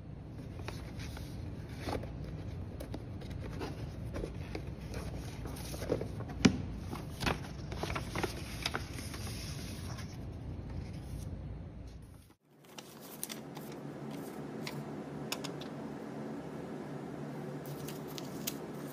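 Handling noise from paper items and an archival box: scattered light taps and scrapes over steady room noise, with one sharp tap about six seconds in. Midway the background changes abruptly to a steadier low hum with faint light rustles.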